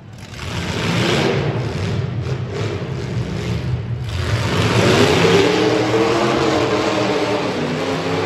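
Full-size demolition derby cars' engines revving hard, several at once, with the engine pitch climbing and wavering from about halfway through.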